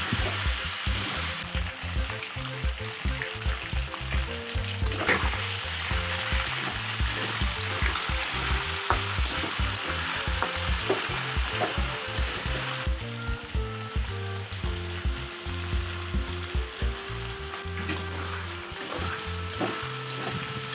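Food sizzling steadily as it fries in hot oil in a pan, with a few sharp clicks.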